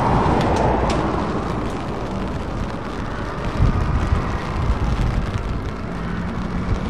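Convoy of Scania S-series trucks approaching on the road: steady diesel engine and tyre noise, with wind buffeting the microphone. Loudest at the start, then easing slightly.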